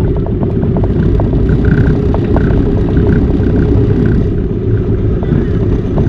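Car on the move: a steady low rumble of road and engine, with scattered small clicks and rattles.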